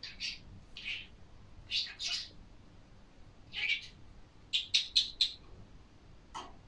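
Green budgerigar vocalizing in short, high chirps and chattering calls, several separate bursts with a quick run of about five sharp chirps past the middle.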